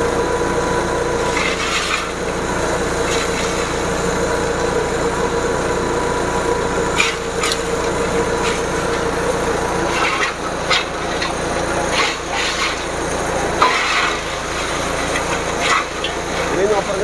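Forage chopper machine running with a steady hum while its blades cut fed grass and stalks, giving irregular crunches every second or two.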